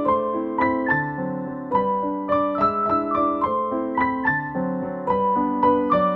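Background piano music: a gentle melody of notes struck about three a second over held chords.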